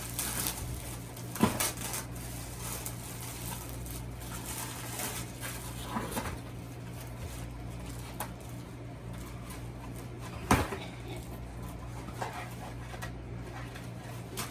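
Scattered clicks and knocks of Nerf gear and its packaging being handled and opened, with two louder knocks, one about a second and a half in and one about ten and a half seconds in, over a steady low hum.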